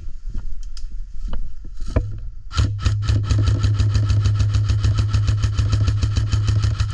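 Airsoft rifle firing a long full-auto burst: a rapid, even stream of shots over a steady motor hum, starting about two and a half seconds in. Before it come a few scattered snaps.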